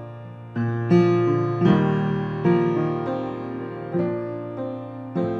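Grand piano playing slow chords, a new chord struck about every second and each left to ring and fade.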